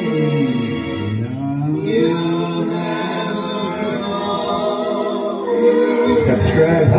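A man singing a slow melody into a microphone, with long held notes; near the start his voice slides down low and climbs back up.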